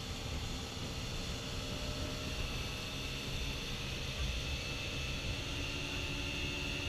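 Motorboat running at speed: a steady rumble of the engine and the rushing wash of its wake, with a faint high whine that grows a little stronger a couple of seconds in.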